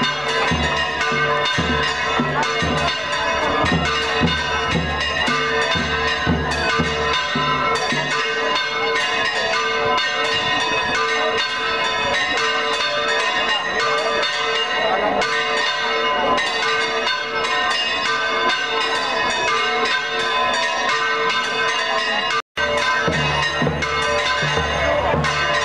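Several church bells pealing continuously in a dense, fast peal, with a low pulsing beat underneath at the start and again near the end.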